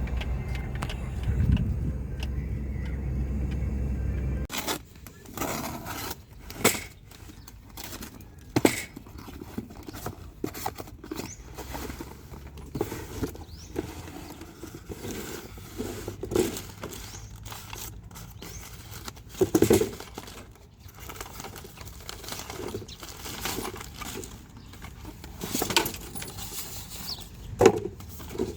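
A low engine rumble for the first few seconds, cutting off sharply, then scattered clinks, knocks and rustles of small hard objects being handled.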